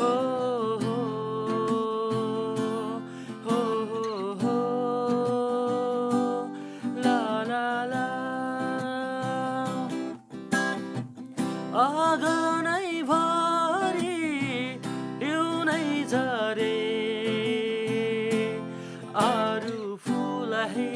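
Music: a Nepali song with acoustic guitar accompaniment under a melody line that bends and slides in pitch.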